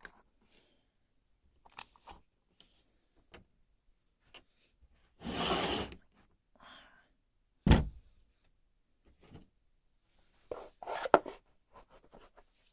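Handling noises on a hard surface: scattered light clicks and taps, a rustling slide about five seconds in, one sharp thump a couple of seconds later, and a short run of clicks and knocks near the end.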